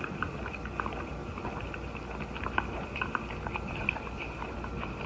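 Wet licking and smacking as a puppy licks a calf's face: irregular short clicks over a faint steady high tone.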